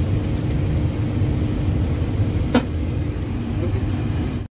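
Steady low rumble of a parked airliner's cockpit background noise, with a faint steady hum and a single sharp click about two and a half seconds in. The sound cuts off suddenly just before the end.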